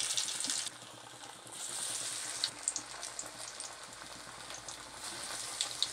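Black chana vadai (chickpea fritters) deep-frying in hot oil in an aluminium kadai: a steady sizzle with scattered small pops and crackles, dipping briefly about a second in.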